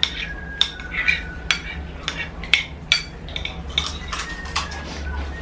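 Spoons and forks clinking against plates and bowls as people eat, in irregular sharp clinks, some ringing briefly.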